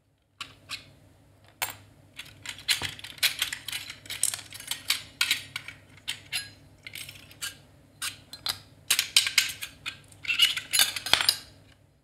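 Quantum Fireball hard-drive platters and metal spacer rings clinking and scraping against each other as they are lifted off the spindle by hand, in many quick, irregular clinks.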